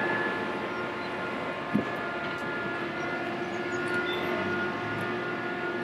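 Steady drone of a crane's engine, with several constant tones, while it holds a suspended precast concrete balcony slab. A single short knock sounds a little under two seconds in.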